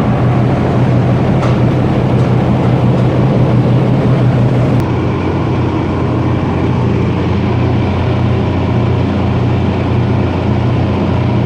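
Steady engine hum and road noise inside a moving car. The character of the noise changes abruptly about five seconds in.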